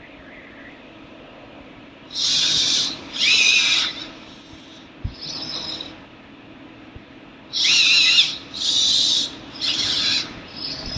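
Robotic hand built from Robotis Dynamixel servos whirring as its fingers move into gestures: about six short high-pitched bursts, each under a second.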